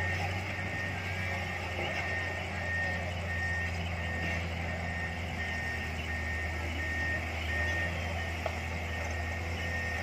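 A heavy vehicle's reversing alarm beeping at an even rate, over the steady low running of diesel engines.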